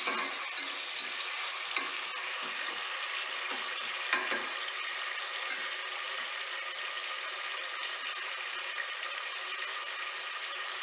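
Sliced onions sizzling as they fry in oil and ghee in an aluminium pressure cooker. For the first four seconds or so a spoon scrapes and knocks against the pot as they are stirred, loudest about four seconds in. After that there is a steady sizzle alone.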